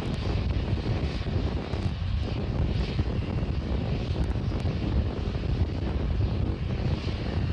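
Distant rumble of a climbing Starship SN8 rocket's three Raptor engines: a steady, low roar without a break.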